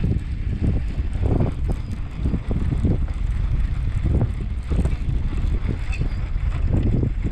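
Wind buffeting the camera microphone, a loud steady rumble with gusty rises and falls.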